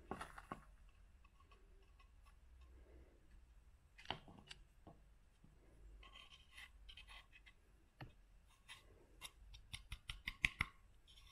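Light knocks and scrapes of a wooden coffee grinder drawer against a paper-lined pour-over dripper, tipping out the last ground coffee. A few single clicks, then a quick run of taps near the end.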